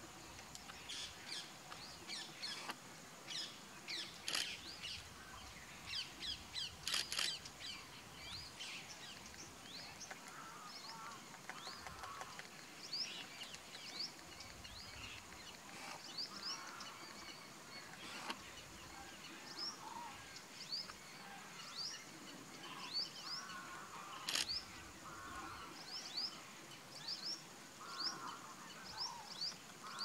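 Background birdsong: many short, high chirps and quick upward notes from several small birds, with some lower calls from about ten seconds in and a few sharp clicks.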